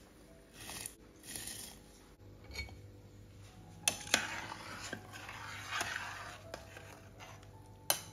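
Rice tipped into a stainless steel stockpot of boiling broth and stirred in with a metal spoon: swishing, scraping and clinks of metal on metal, with two sharp knocks about four seconds in and another near the end.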